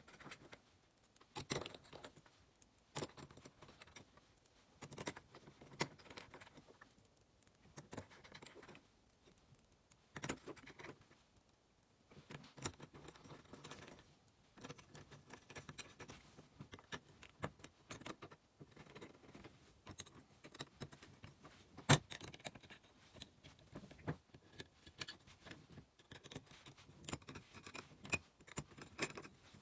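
Faint, irregular small metallic clicks and light scraping as small M3 screws are turned in with a hex key to fasten a metal wedge to a robot chassis, with one sharper click about three-quarters of the way through.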